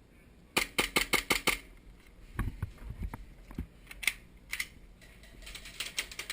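Airsoft pistols firing: a rapid string of about seven sharp shots about half a second in, then a few dull thumps, single shots, and another quick cluster of shots near the end.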